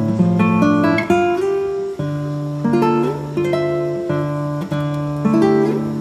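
Background music: guitar playing plucked notes and chords that change every second or so.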